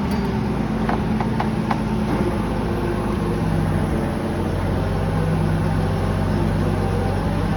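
An engine idling steadily, its pitch dropping slightly about three seconds in, with a few faint clicks about a second in.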